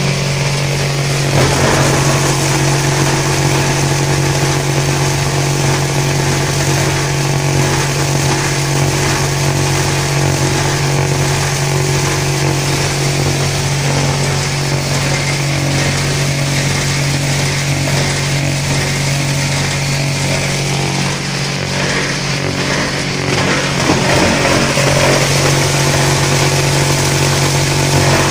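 IPR-500 industrial shredder running under load, shredding woven polypropylene big bags into strips: a loud, steady machine hum under a continuous rough noise of material being cut.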